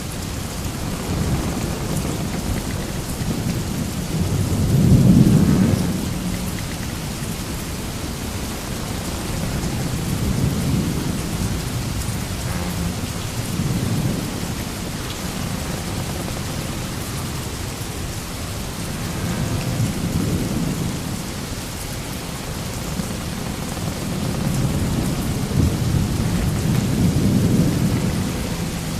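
Sailing-ship ambience sound effect: a steady rushing noise with low rumbling swells every few seconds, the loudest about five seconds in and near the end.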